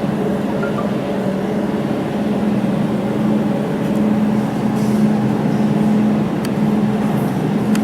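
Laser jewelry welding machine running with a steady, even hum, with a few short sharp clicks from about five seconds in as it fires on a stainless steel sample.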